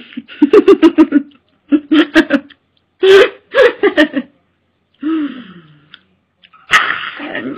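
A woman laughing and giggling in several short bursts of quick pulses, with a falling voiced sound about five seconds in.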